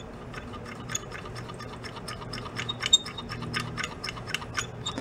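Quick small metal clicks and ticks from a VW carburetor's throttle linkage worked back and forth by hand, coming faster in the second half. It is a test of the accelerator pump, which does not respond: it isn't working.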